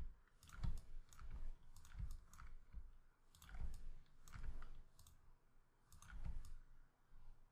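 Computer mouse clicking: a string of irregular, fairly faint clicks, sometimes two or three close together, each with a dull low thump under it.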